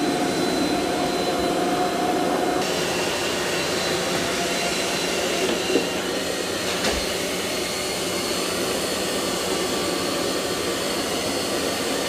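Eufy X10 Pro Omni robot vacuum-mop running on its cleaning run, a steady whir of its suction fan with faint high whine tones, vacuuming a carpet mat. The tone shifts slightly about two and a half seconds in.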